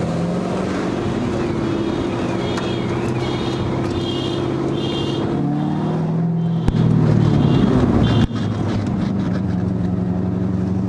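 Chevrolet Corvette C5's 5.7-litre V8 running steadily at low road speed, exhaust in its quieter muffled mode. The engine note dips and changes about six seconds in, then settles again.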